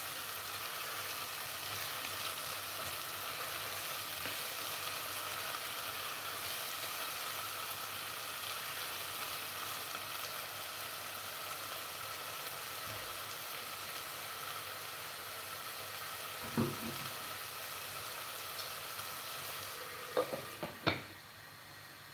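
Chopped onion, habanero pepper and garlic sizzling steadily as they fry in oil in a pot. Near the end a few sharp knocks come as a glass lid is set on the pot, and the sizzle turns quieter under it.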